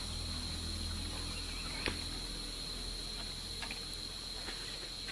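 Insects keeping up a steady high-pitched drone over a low hum that fades out about two seconds in. A few faint clicks come about two seconds in and again near the four-second mark.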